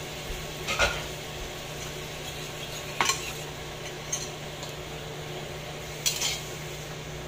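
A cooking spatula clinks against a metal pot a few times: once about a second in, again about three seconds in, and twice near the end as stirring begins. A steady low hum runs underneath.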